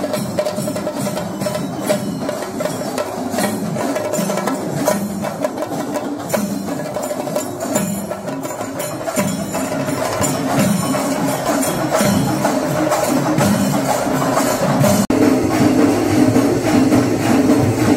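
Drum-led percussion music with rapid strokes over a sustained tone. About 15 seconds in it breaks off abruptly and resumes louder and denser.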